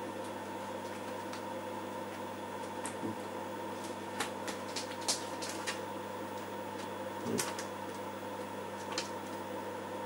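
Steady hum of running computer equipment, with scattered light clicks and knocks of someone rummaging through disks for a blank floppy.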